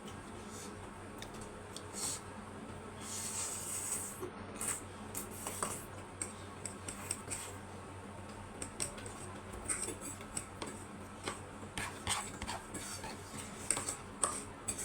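Utensils clinking and scraping against bowls and plates while noodles are eaten, with many scattered sharp clicks and a short rustling hiss about three seconds in.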